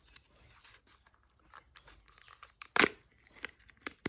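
Packaging of a laptop RAM module being opened by hand: plastic crinkling and tearing with scattered small clicks, and one sharp crack a little under three seconds in.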